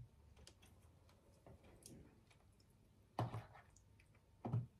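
Quiet eating and drinking sounds: faint scattered light clicks, and two short louder mouth sounds, one about three seconds in and one near the end, while someone sips bubble tea through a metal straw and spoons up noodles.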